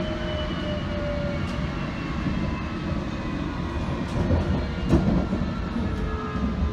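The inside of a London Underground District Line S7 Stock train running along the track: a steady rumble of wheels on rail with a faint whine that slowly falls in pitch. One clunk comes about five seconds in.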